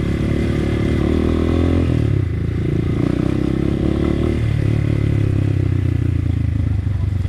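Motorcycle engine running under way, its note changing about two seconds in and again after about four seconds as the engine speed shifts.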